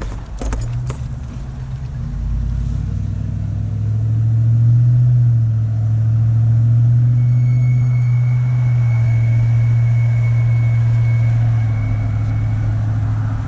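A 2012 Ford F-250's 6.2 L V8 pulls away under acceleration with a steady low drone. About seven seconds in, a faint, steady high-pitched whine from the passenger-side front end joins it for several seconds, then goes away on its own shortly before the end. The owner is unsure whether the whine is a wheel bearing.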